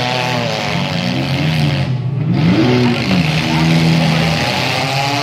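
Engines of small demolition-derby cars running and revving, their pitch rising and falling as the cars push and manoeuvre, over a steady wash of background noise.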